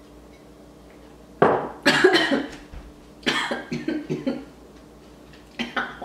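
A young woman coughing hard in three bouts, each a run of sharp coughs, muffled into the crook of her elbow, right after a sip of coffee.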